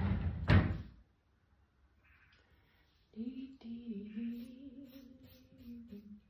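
A short rush of noise ending in one sharp knock, then after a pause a woman humming one long, slightly wavering low note for about three seconds.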